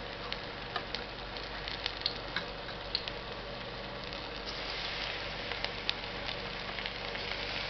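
Hot oil in a pan sizzling, with scattered crackling pops, as batter-coated cauliflower florets go in to deep-fry; the sizzle grows louder about halfway through.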